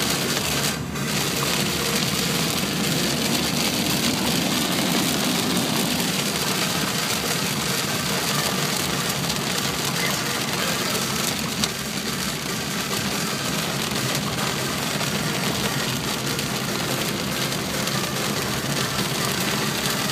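Heavy rain beating on a car's roof and windscreen, with tyre and engine noise, heard from inside the cabin. The rain noise drops briefly about a second in as the car passes under a bridge. There is a single sharp tick near the middle.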